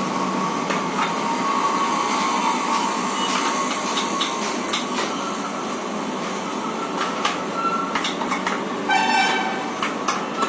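Clicks and knocks of plastic printer parts being handled and fitted, over a steady background hum of noise. A short horn-like tone with several pitches sounds about nine seconds in.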